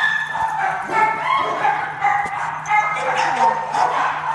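Several dachshunds yipping and whining, short high-pitched cries overlapping one another.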